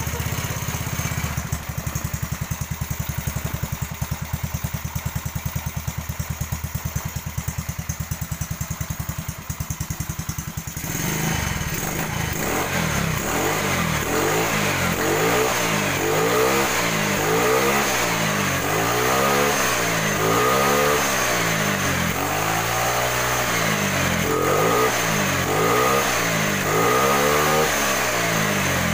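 Yamaha Mio scooter's single-cylinder four-stroke engine, freshly bored up to 130cc, idling with an even putter. About eleven seconds in it is revved up and then blipped over and over, the pitch rising and falling roughly every second and a half.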